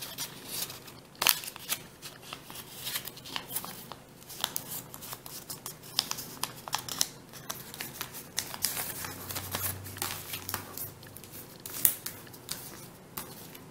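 Double-sided origami paper being folded and creased by hand, crinkling in irregular short crackles, with two sharper ones about a second in and near the end.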